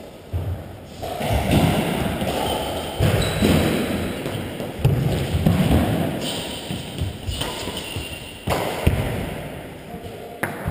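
Badminton rally in a large sports hall: repeated thuds of players' footsteps and lunges on the court floor, with sharp knocks of rackets striking the shuttlecock.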